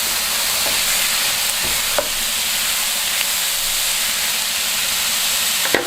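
Diced chicken with onion, garlic, chilies and carrot sizzling in hot oil in a pan: a steady high hiss. A couple of sharp clicks sound over it, about two seconds in and near the end.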